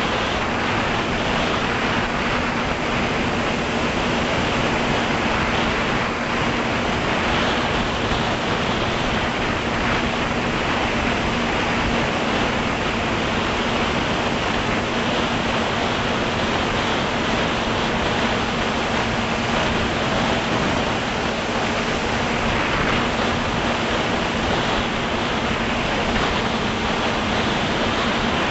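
Drone in flight, heard from its own camera: a steady hum of motors and propellers holding one pitch, under a constant rush of wind noise.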